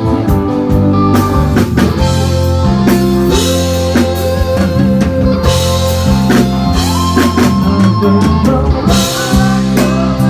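A band plays an instrumental break: drum kit and bass keep a steady beat under a lead melody line of held notes with sliding bends, with no singing.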